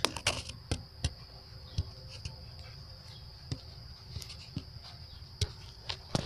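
Irregular knocks, clicks and rustles as a weed is pulled out by hand and the phone is handled close to the microphone. A steady high-pitched insect-like trill continues in the background.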